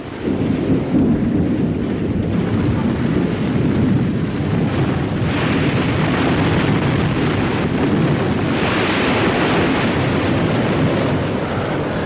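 Avalanche sliding down a mountainside: a continuous deep rumble that begins suddenly, with a rushing hiss swelling in about halfway through and again later.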